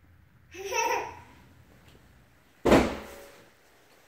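A toddler's short babbling vocalization with a wavering pitch, then about two and a half seconds in a single sudden thump that fades away.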